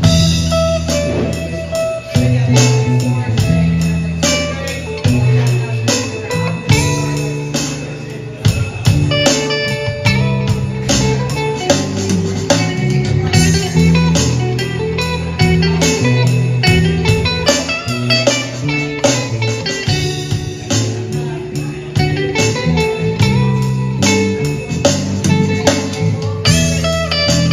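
Live band jam: electric guitar playing blues-rock lines over an electric bass line and a steady drum beat.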